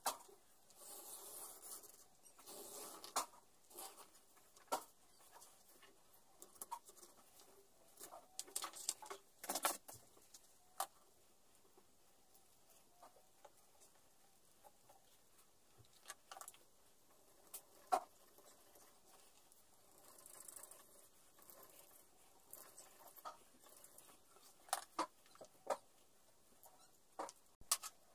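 Light workbench handling of leather and tools on a wooden board: a knife scraping along a steel ruler as it cuts a leather strip near the start, then scattered clicks, taps and rustles of the leather and tools being handled, with a few sharper clicks in the second half.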